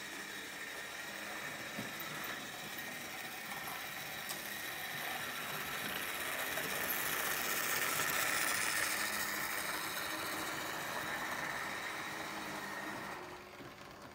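An analog Märklin H0 model train running on K-track, a steady running noise that swells to its loudest about halfway through and drops away sharply near the end.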